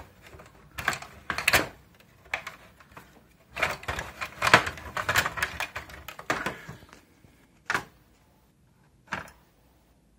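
Irregular clicks and clatter of a VCR circuit board and its plastic and metal chassis parts being handled, thinning to two separate knocks near the end.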